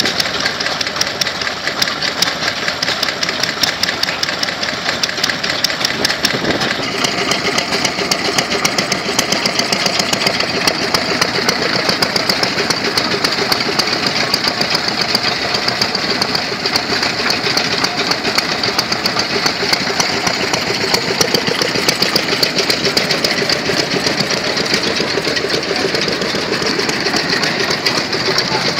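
Several small vintage stationary engines running together, a fast, steady beat of firing strokes from more than one engine at once.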